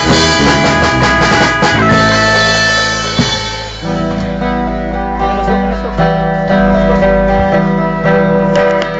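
Live amateur rock band: an electric guitar playing over a drum kit. About four seconds in, the drums mostly drop out and the guitar plays long held chords.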